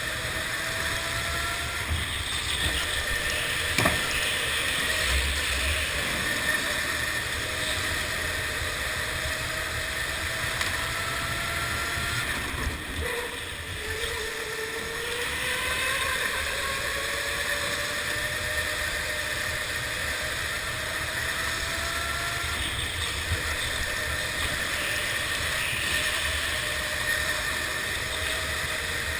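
Onboard sound of a go-kart running hard around an indoor track: a steady motor whine that climbs slowly in pitch as the kart gathers speed, drops sharply about halfway through when it slows for a corner, then climbs again.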